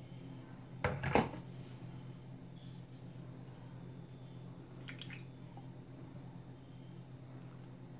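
Pour-over coffee dripping into a glass beaker mug over a steady low hum, with two sharp knocks about a second in and fainter clicks near five seconds.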